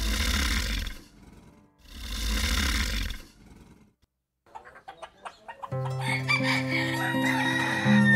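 Two long breathy hisses, each about a second, then chickens clucking in quick short calls and a rooster crowing over soft background music with plucked strings.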